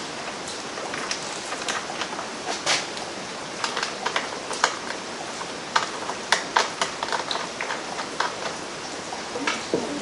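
A steady, rain-like hiss under scattered light clicks and taps, as parts are handled on a small V-twin engine on the bench.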